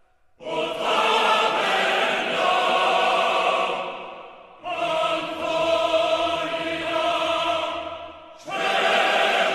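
Choral music: three held choir chords, each coming in sharply about four seconds apart and then fading away.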